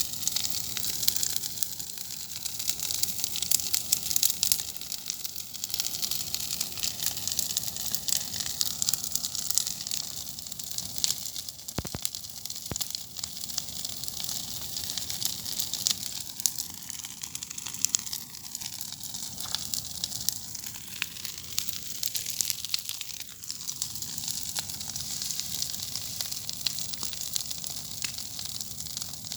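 A large bonfire burning, with a dense, continuous crackle and hiss of burning wood and an occasional sharper pop.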